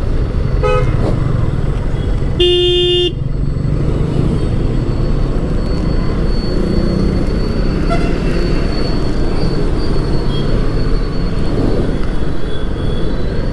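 Steady low rumble of a motorcycle ride in road traffic, engine and wind together. A vehicle horn honks once for about half a second, roughly two and a half seconds in, after a brief shorter toot just under a second in.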